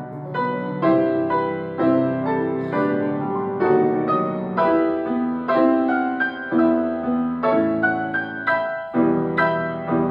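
Piano playing steady repeated chords and melody notes, struck about every half second, each ringing and fading before the next.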